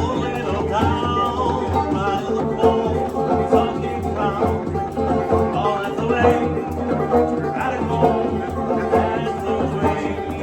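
Music with singing, in a country or bluegrass style, playing steadily throughout.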